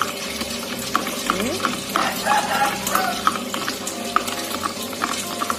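A spoon stirring powdered detergent into water in a small plastic cup, clinking and scraping against the sides in quick, irregular strokes.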